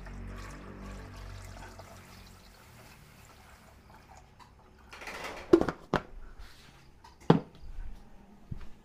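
Water pouring into a cooking pot, with a few sharp knocks of cookware; the loudest knock comes about seven seconds in.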